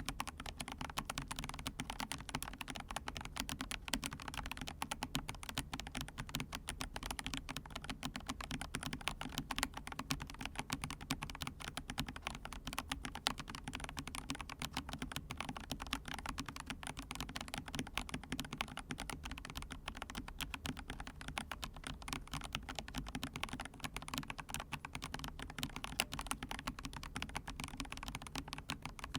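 Continuous fast typing on a full-size mechanical keyboard, the Monstargear Ninja 108 PRO, with Gazzew Boba U4T tactile, non-clicky switches and PBT keycaps: a dense run of key presses.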